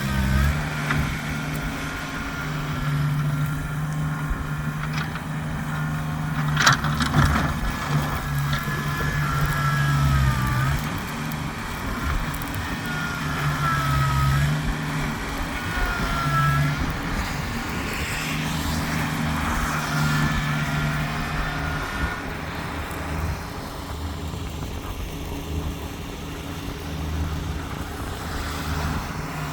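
Kubota tractor's diesel engine running steadily while plowing snow, its pitch dipping and coming back at times. Short high squeaks come and go over it, and there is one sharp click about seven seconds in.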